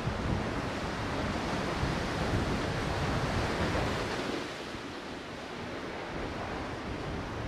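Sea surf washing against the breakwater, mixed with wind buffeting the microphone in a gusty low rumble; it eases a little about four and a half seconds in.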